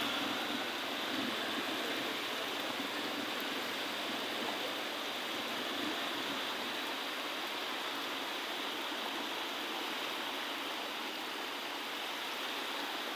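Steady, even rush of water from heavy rain and floodwater.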